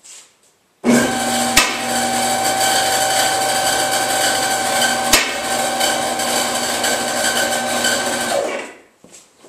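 Electric-hydraulic car lift motor and pump switching on abruptly, running steadily with a whine while it raises the car body, then shutting off after about seven and a half seconds. Two sharp clicks sound through it.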